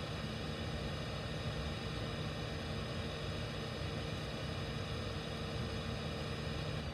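Steady machine hum with a faint high whine over a hiss. The whine and part of the hum cut off suddenly near the end.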